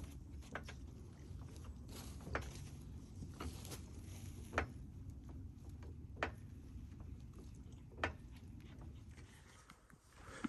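A series of sharp clicks or knocks, about one every two seconds, over a low steady rumble.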